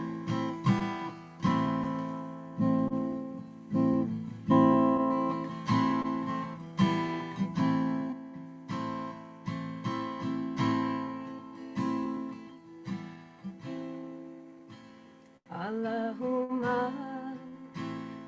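Chords strummed again and again on a plucked string instrument, each ringing and fading. Near the end a voice begins singing a devotional chant over it, starting 'Allahumma'.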